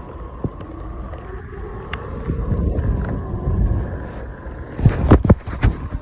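Electric skateboard rolling along, with steady wheel and road rumble and wind on the microphone, and a faint steady whine running through it. A cluster of loud knocks comes about five seconds in, the loudest sound here.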